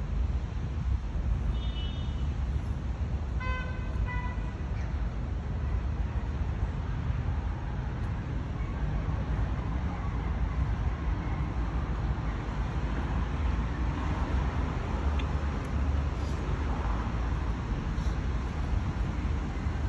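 Steady city traffic noise with a deep rumble, broken by a car horn tooting twice briefly about three and a half seconds in.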